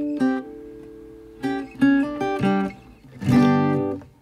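Background music: acoustic guitar, plucked notes and a strummed chord ringing out, dying away near the end.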